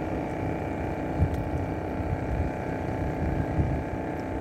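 A small boat's engine running steadily, with low wind rumble on the microphone and two brief low thumps, about a second in and near the end.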